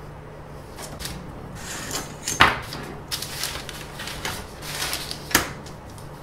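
A steel ruler and paper being handled on a workbench: rustling with two sharp knocks, the louder one about two and a half seconds in and another about a second before the end.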